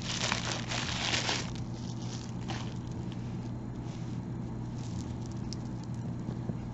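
Plastic bubble-wrap bag crinkling as it is pulled open for about the first second and a half, then faint light clicks of a beaded necklace's beads and chain being handled.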